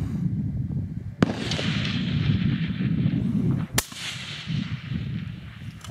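Two sharp rifle shots from a long-range precision rifle, the first about a second in and the second about two and a half seconds later. The first shot rolls away in a long echo across the range.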